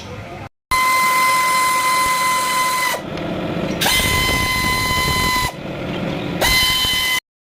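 A power tool whining at a steady high pitch. Twice its pitch sags lower for about a second, as if under load, then climbs back up. It cuts off suddenly near the end.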